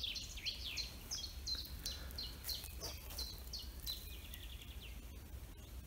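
A small songbird singing a rapid series of short, high, falling chirps, several a second, ending in a faint trill.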